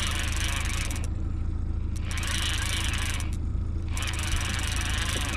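Boat motor running steadily at trolling speed, a constant low rumble. A high hiss lies over it and drops out twice, for about a second each time.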